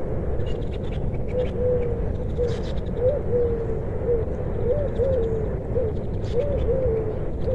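A dove cooing over and over, short coos that rise then fall, often in pairs, starting about a second in, over a steady low rumble.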